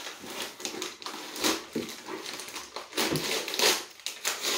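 Wrapping being torn and peeled off a small box by hand, a run of uneven crinkling rips.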